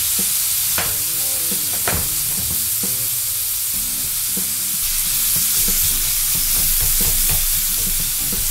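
Onion and chicken-chorizo sauce sizzling in a frying pan with a steady hiss, as chopped fresh tomatoes are dropped in and stirred with a spatula. Scattered knocks and scrapes of the spatula against the pan.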